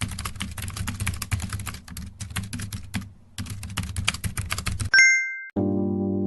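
Rapid keyboard typing clicks, broken by a brief pause about three seconds in, end in a bright bell ding. Keyboard music with sustained notes then starts near the end.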